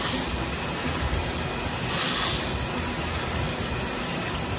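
Storm Vulcan 15AW crankshaft grinder running, its wheel grinding a crankpin journal on a Chevrolet 235 six-cylinder crankshaft under coolant spray: a steady hiss that swells briefly about two seconds in.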